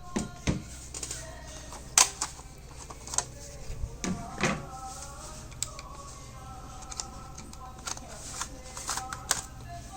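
Irregular clicks and knocks of computer hardware being handled and worked on, the loudest about two seconds in and again halfway through, over a steady low hum, with faint voices in the background.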